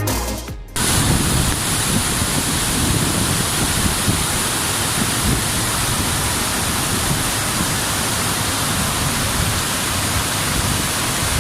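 Electronic music fades out in the first second. It is cut to the steady rushing noise of a waterfall: falling water hissing evenly with a rumbling low end.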